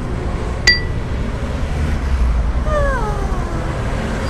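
A sharp click with a short ping, then a little past the middle a single drawn-out cry that falls in pitch, meow-like, over a steady low rumble.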